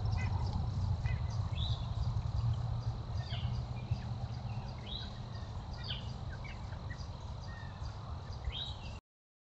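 Songbirds calling, about six short chirps, some sliding down in pitch, over a steady low rumble on the trail camera's microphone. The sound cuts off suddenly near the end.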